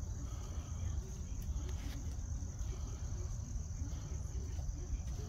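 Steady, high-pitched insect trilling over a low, steady rumble.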